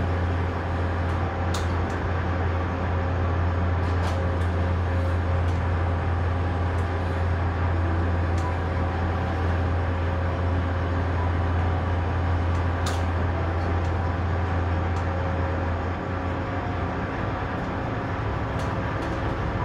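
Tugboat's twin 1300 hp V8 diesel engines running with a steady low drone, which thins out and changes about three-quarters of the way through as the tug gets ready to back off the ship. A few faint clicks sound over it.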